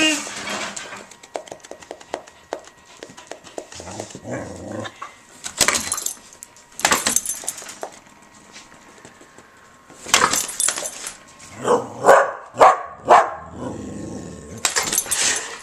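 Dog barking in a few short barks about twelve seconds in, with scattered sharp knocks and scuffles around them as it goes at a hair dryer.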